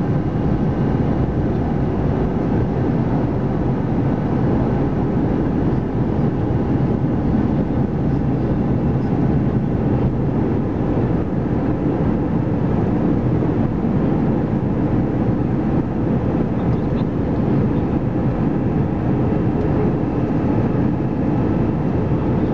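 Airbus A319 cabin noise heard from a window seat during the descent on approach: a steady low rumble of engine and rushing air, with a faint hum running through it.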